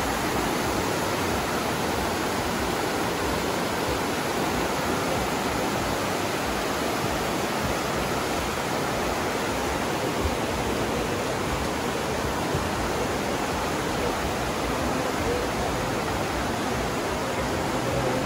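The Aare river rushing through its narrow rock gorge: a steady, unbroken noise of fast-flowing alpine water.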